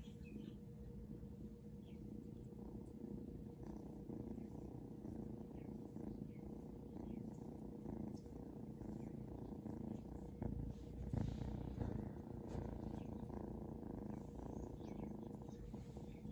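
Seal point Ragdoll kitten purring steadily while being stroked, with a brief louder thump about two-thirds of the way through.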